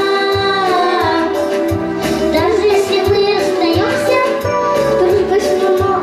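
Children singing a song into microphones over a recorded backing track with a steady beat.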